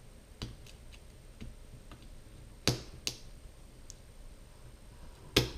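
Sharp clicks and taps of an LG G3 phone's parts being fitted back together by hand, with the power-button part pressed into place; about six clicks, the loudest two about halfway and near the end.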